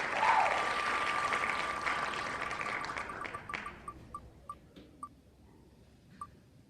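Applause dying away under an electronic ticking sound effect. The effect starts as a steady high tone, breaks into ticks that slow down, and stops, like a spinning selection wheel coming to rest.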